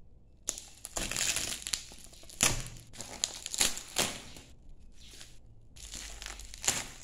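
Plastic bubble wrap crinkling and crackling under handling as it is unwrapped from a box and its tape strip pulled away, in irregular bursts with a few sharper crackles and a brief lull a little past the middle.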